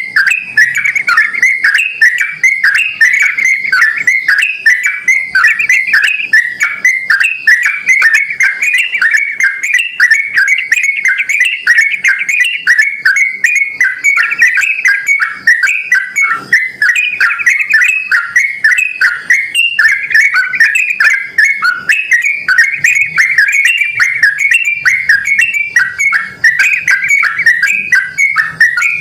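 Yellow-vented bulbul (trucukan) singing a continuous, lively chatter of quick whistled notes with no pauses, a call used as a lure to make other bulbuls answer.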